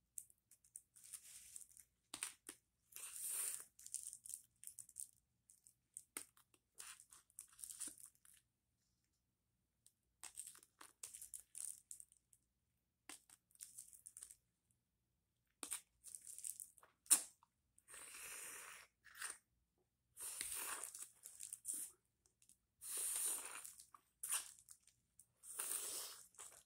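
Close mouth sounds of eating whipped cream off a cucumber: wet sucking and smacking in short, irregular bursts with pauses between.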